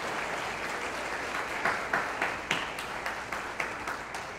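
Audience applauding, with a few louder single claps standing out in the middle, the clapping fading near the end.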